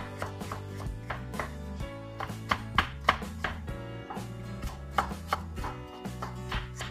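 Chef's knife chopping garlic on a wooden cutting board: quick, uneven knife strikes against the board. Background music plays underneath.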